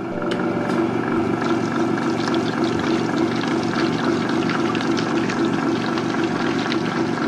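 Vitamix Professional Series 500 blender motor running steadily on low speed, its blade churning half a container of warm water and whipping it into foam. It starts suddenly at the very beginning.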